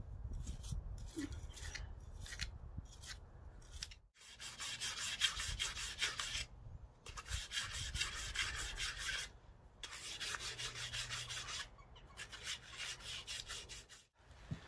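Hand scrubbing of BMW R1200RT starter motor parts as they are cleaned of grime: faint brushing at first, then from about four seconds in quick, even rubbing strokes on a small copper part, in several runs broken by short pauses.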